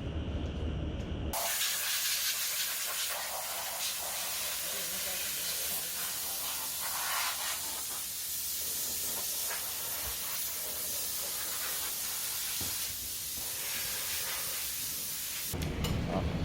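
Steady hiss of a high-pressure spray, starting abruptly about a second in and cutting off abruptly near the end.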